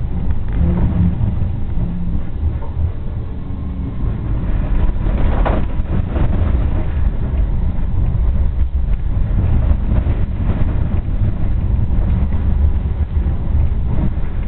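Tram running along its track, heard from inside at the front: a steady low rumble of wheels on rails and running gear, with a short burst of higher clatter about five and a half seconds in.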